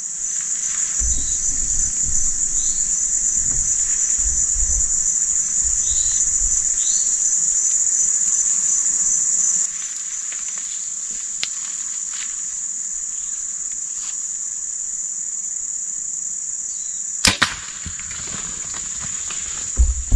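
A steady, high-pitched chorus of insects. About 17 seconds in, a sharp double crack cuts through it: a hunting shot.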